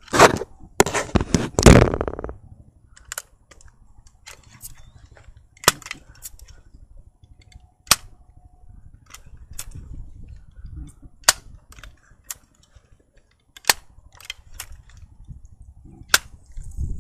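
Pump-up pellet rifle being handled: a quick run of loud clacks in the first two seconds, then scattered single sharp clicks.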